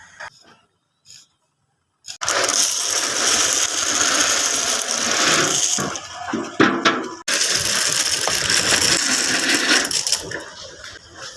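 Concrete mixer running: a loud, dense clattering noise that starts abruptly about two seconds in, drops briefly with a few sharp clicks around six to seven seconds in, then resumes.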